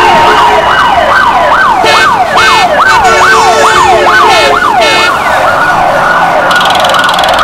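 Emergency vehicle siren sounding loudly in yelp mode, a quick falling sweep about two to three times a second, switching to a faster warble about five seconds in.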